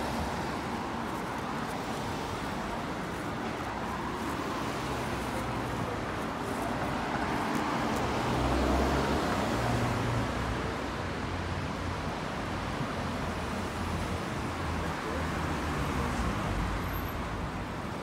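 Street traffic: a steady hiss of cars driving past, swelling a little about halfway through.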